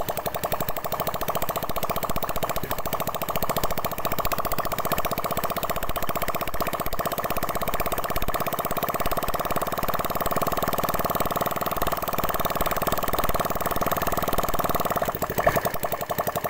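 Freshly rebuilt 70cc single-cylinder four-stroke motorcycle engine idling steadily just after its first-kick start, while its carburettor setting is adjusted by hand. Its note changes abruptly about a second before the end.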